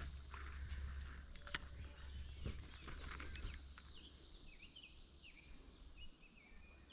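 Short, high bird chirps repeating through the second half over a faint low rumble, with a few scattered sharp knocks in the first few seconds.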